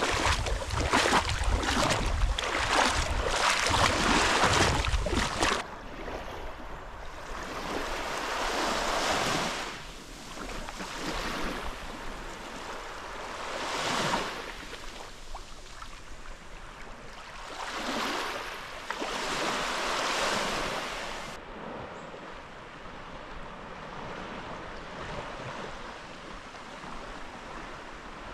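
Wind buffeting the microphone with a heavy rumble for the first five seconds or so, then cutting off. After that, sea waves wash in and draw back in several slow swells a few seconds apart.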